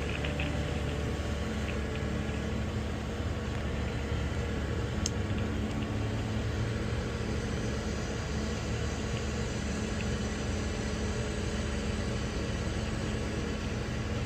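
36-ton crane's diesel engine running steadily, holding a load while waiting.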